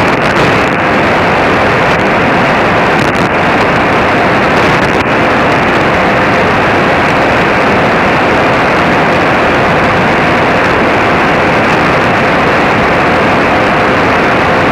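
Drake SW8 shortwave receiver hissing with steady static in upper-sideband mode on a quiet channel, no voice on the frequency, with a faint steady whistle underneath.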